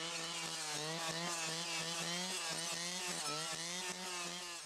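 A two-stroke brush saw engine runs at high speed, its pitch wavering a little as the blade is swept through small conifers. The sound fades away near the end.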